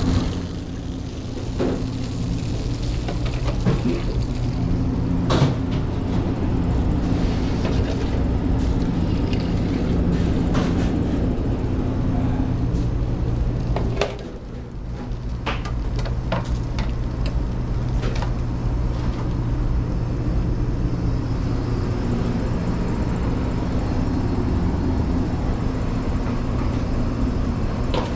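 Steady hum of running commercial kitchen equipment, including a conveyor pizza oven, holding a few constant low tones. Scattered short metal clinks and clatters come from kebab skewers and trays being handled.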